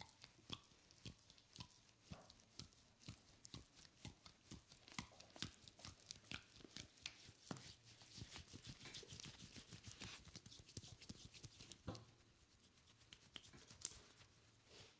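Hands rubbing and squeezing a cream-covered bare foot and calf, giving a faint, quick, uneven run of small wet smacks and squelches that thins out near the end.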